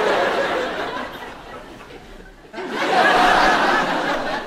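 Audience laughing in two waves, the second swelling up a little past halfway through.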